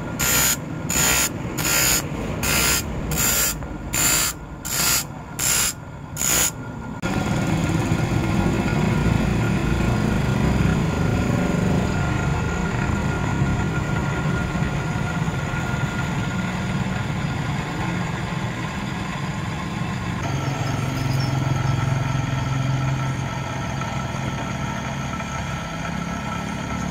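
Electric-motor-driven abrasive disc grinding the teeth of a handsaw, one tooth at a time: a short rasping burst a little more than once a second for about seven seconds. The bursts then stop, and the motor keeps running with a steady whine and a low rumble.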